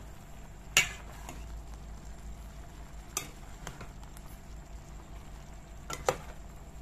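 A metal spoon stirring chopped mixed vegetables in a metal cooking pot, with a few sharp clinks of the spoon against the pot spread through the stirring.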